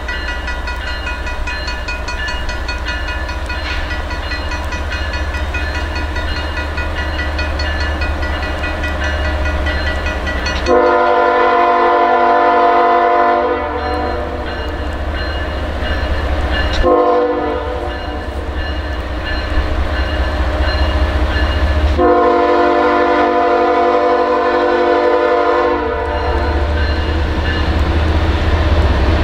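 Norfolk Southern diesel freight locomotive approaching with a steady low engine rumble. Its air horn sounds three times: a long blast about ten seconds in, a short one, then another long one.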